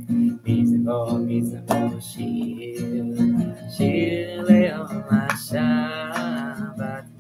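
Acoustic guitar strumming chords as a song starts, with a voice singing along for a few seconds in the middle.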